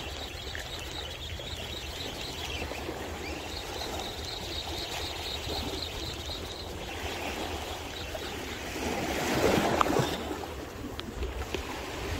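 Small sea waves washing and lapping over a rocky shore, a steady wash of water that swells louder about nine seconds in, with a couple of small knocks.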